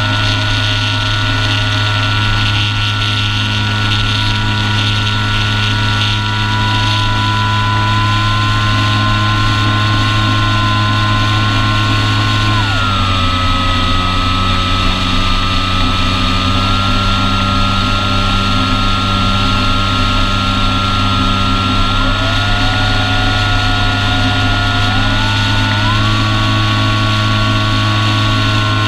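Brushless electric motor and propeller of an Apprentice S 15e RC airplane running in flight, a steady whine over a hiss of rushing air. About halfway through the whine drops sharply in pitch as the throttle is eased back, then climbs again in two steps near the end as power is added.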